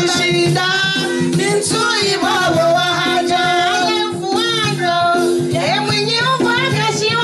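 Music: women's voices singing over an accompaniment of steady held low notes.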